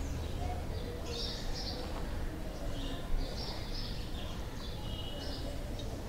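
Birds chirping in short, repeated calls over a steady low rumble of street noise, with a small click about three seconds in.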